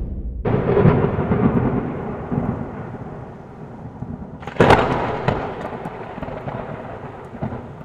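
Thunder sound effect: a crash of thunder about half a second in that rumbles away, then a second, sharper crack a little before five seconds in that also rolls away and fades.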